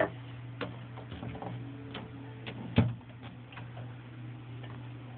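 Irregular light clicks and taps of small plastic toy pieces being handled and set down, with one louder knock just before the middle, over a steady low hum.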